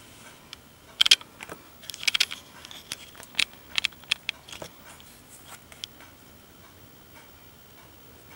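A run of irregular light clicks and ticks, starting about a second in and thinning out after about five seconds.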